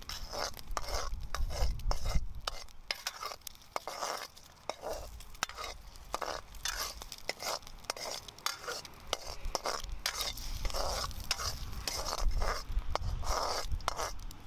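Hand-forged steel wok spoon stirring and scraping food around a hand-forged wok over a campfire: repeated metal-on-metal scrapes and clicks, with food sizzling in the hot pan.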